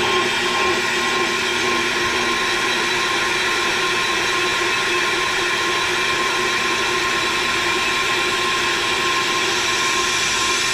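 Pro-Cut on-the-car brake lathe running, spinning the hub and brake rotor while its cutting bits feed automatically across both rotor faces. A steady mechanical whir with a constant high whine.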